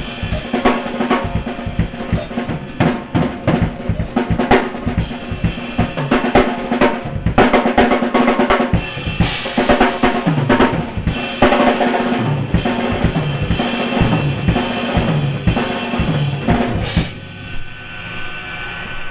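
Drum kit played fast and hard, with rapid bass drum and snare strokes under constant cymbal crashes. The playing stops near the end and the sound drops to a lower, steadier level.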